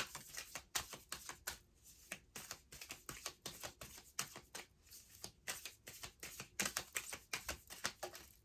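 A deck of oracle cards being shuffled by hand: a steady run of quick, light card clicks and riffles, several a second.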